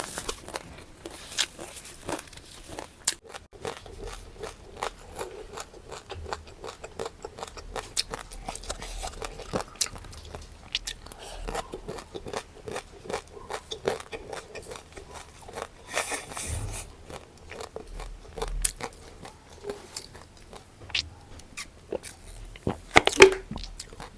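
Close-miked crunching and chewing of crisp food: a rapid, irregular run of crackly bites, with one louder crunch near the end.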